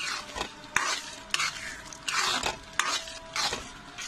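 A metal spoon stirs boiled kidney beans through sizzling fried masala in a kadhai, scraping the pan in about seven uneven strokes, one longer sweep a little past halfway, over the steady sizzle of frying.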